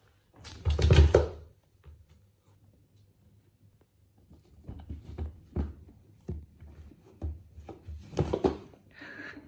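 Two cats scuffling and play-wrestling on a knit sweater over a shelf: thumps and rustling from paws and bodies, loudest about a second in and again near the end, with scattered lighter knocks between.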